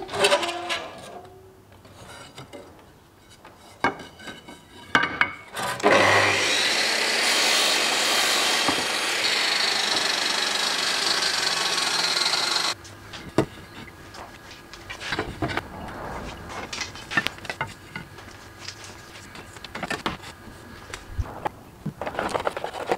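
A sliding compound miter saw runs for about seven seconds as it crosscuts a wooden board, then cuts off sharply. Before and after the cut, wooden pieces knock and rub as strips are handled and laid together.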